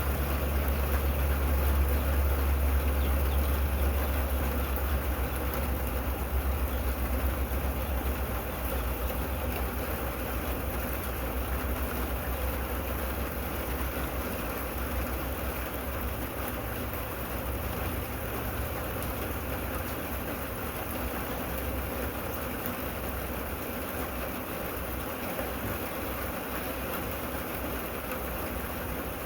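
Steady rain falling, an even hiss. Under it a low, steady rumble is strongest over the first several seconds and then fades.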